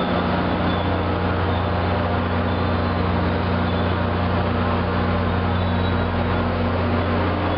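MBTA commuter rail train at the platform, its diesel locomotive running with a steady low hum that does not change.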